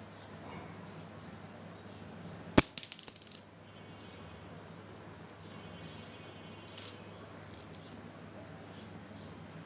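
A coin dropped onto a hard surface, clattering with a high ring for most of a second as it bounces and settles. A single light click follows about four seconds later.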